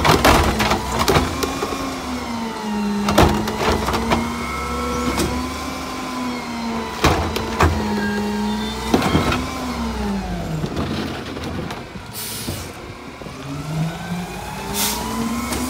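Rear-loader garbage truck's engine revved up to run the hydraulics while a wheeled trash cart is lifted and dumped on the cart tipper. There are several loud clanks and bangs as the cart hits the tipper and the hopper. The engine pitch drops away about ten seconds in and climbs again near the end, with short air hisses in between.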